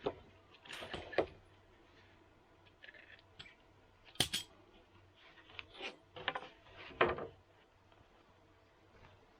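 Scattered light knocks and clatters of things being handled, with a few sharper knocks about four and seven seconds in.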